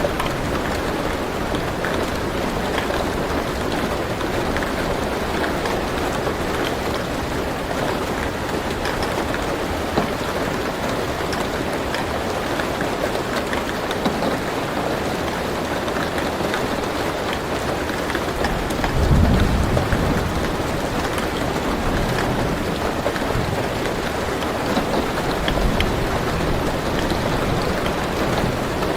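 Steady rain falling on a car roof, heard from inside the car. A low rumble of thunder comes about two-thirds of the way through, and a fainter one near the end.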